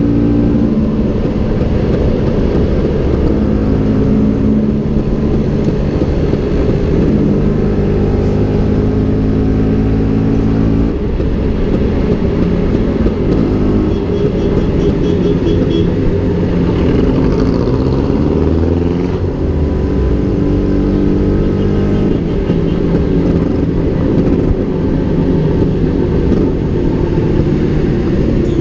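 Vespa PX150's two-stroke single-cylinder engine, fitted with a SIP Road 2.0 exhaust and a Polini air filter, running under way, its note changing with the throttle and rising steeply about two-thirds of the way through. Wind rumble on the microphone runs underneath.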